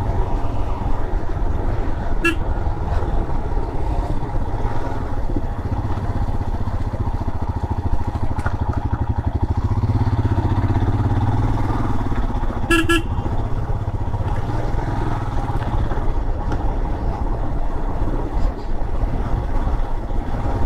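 Motorcycle engine running steadily while riding, with wind rush on the microphone. A horn gives a brief toot about two seconds in and a short double toot a little past halfway.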